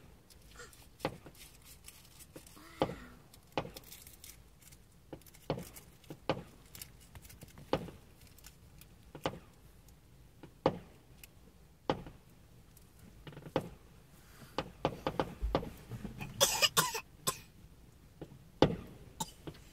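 Fireworks going off at a distance: a string of sharp bangs at irregular intervals, about one a second, thickening into a quick run of bangs with a crackling burst near the end.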